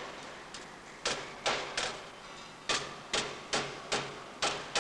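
Hammer striking folded sheet metal, flattening a self-securing folded seam: a run of about ten sharp blows at an uneven pace.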